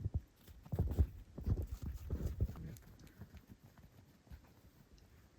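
Footsteps in snow: an irregular run of soft low thuds that trail off after about three seconds.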